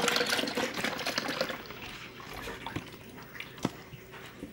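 Milk pouring from a carton into a blender jar, splashing loudly at first and thinning to a quieter trickle about a second and a half in, with a few light knocks.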